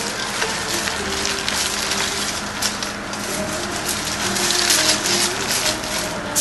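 Aluminium foil being crinkled and folded by hand, wrapping fish into a sealed parcel for steaming: a dense crackling rustle.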